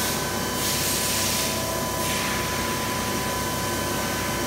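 Dugard Eco 2000 CNC vertical machining centre running: a steady whine over a hiss, with two short surges of louder hiss in the first two seconds.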